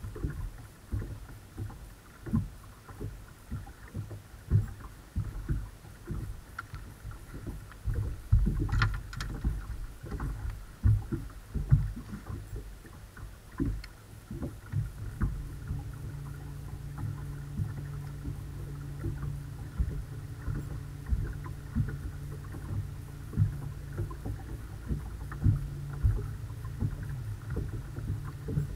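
Small waves slapping and knocking against a bass boat's hull as irregular low thumps, with a brief sharp click about nine seconds in. About fifteen seconds in, a steady low electric hum starts up and runs on: the bow-mounted trolling motor.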